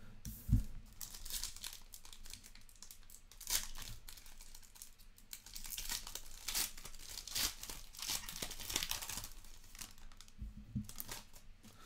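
A foil trading-card pack wrapper crinkling and tearing as it is ripped open by hand. There is a dull knock about half a second in.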